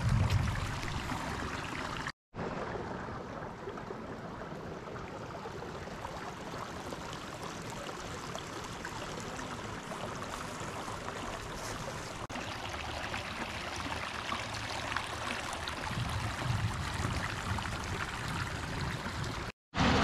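Small creek flowing steadily, a continuous rushing of water.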